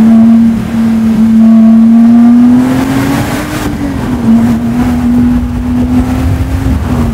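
Lotus Exige S engine and exhaust heard from inside the cabin while driving, a steady drone. About three seconds in the revs climb briefly, then drop back to the steady note.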